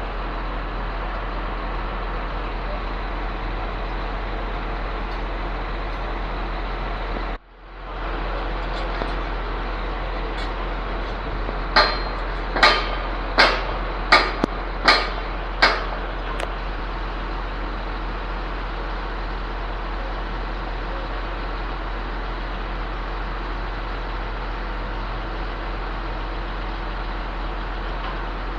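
Truck-mounted concrete pump running with a steady engine drone. Midway, about seven sharp metallic knocks come at an even pace, a little under a second apart.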